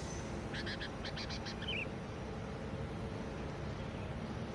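A small bird calling a quick run of six or seven short high chirps, with one more chirp just after, over steady outdoor background noise.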